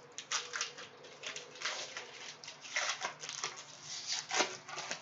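Mosaic basketball trading cards and their pack being handled: an irregular run of crisp rustles and clicks as the cards are slid and flicked through by hand.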